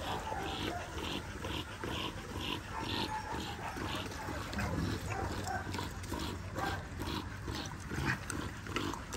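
A dog panting close by, a quick, even rhythm of about two and a half breaths a second that fades after the first few seconds.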